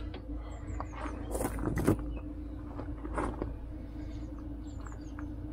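Cable handling: light clicks and rustling as reversing-camera wires are pulled and fed into a van's rear door panel. The handling is loudest about one and a half to two seconds in, over a steady low hum.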